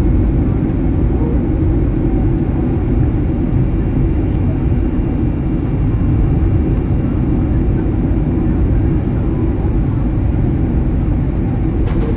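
Steady in-flight cabin noise of a Boeing 767-300 airliner, heard from a window seat over the wing: the drone of its Rolls-Royce RB211 turbofan engines mixed with airflow, strongest in the low range and unchanging throughout.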